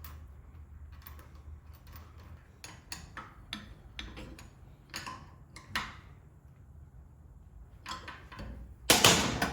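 Metal parts and hand tools handled during reassembly of a bottle rinser's clamp: scattered light clicks and knocks, then a louder clatter near the end.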